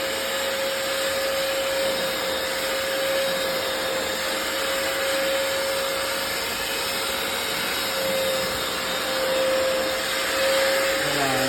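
Hoover FloorMate hard floor cleaner running in wash mode: a steady motor whine at one constant pitch over a rush of suction air.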